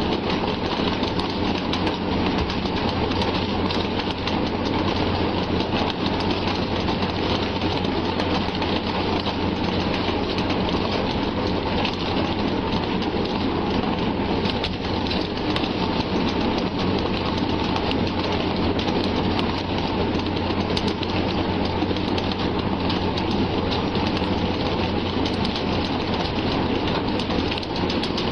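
An engine running steadily at a constant speed, with a low hum under a heavy wash of noise.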